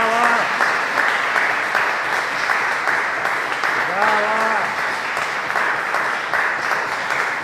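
Audience applauding steadily, with two short shouts from the audience, one at the start and another about four seconds in.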